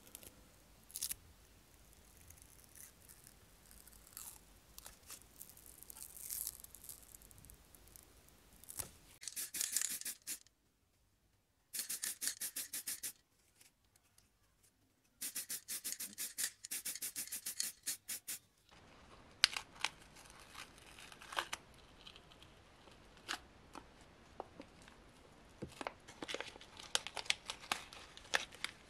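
Masking tape being peeled and masking paper crinkling on a painted scale-model car body, with small tweezer and handling clicks. Twice in the middle come spells of fast, even ticking, each a second or few long, separated by near-dead silence.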